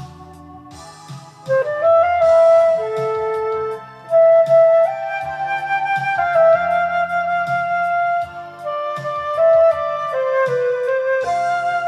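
Flute playing a sustained pop-song melody over a karaoke MIDI backing track with bass and a steady drum beat. The flute comes in about a second and a half in, after a quieter stretch of backing alone.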